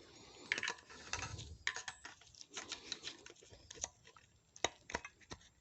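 Irregular small clicks and scrapes of a replacement thermostat and its spring being pressed and twisted into the plastic thermostat housing by hand.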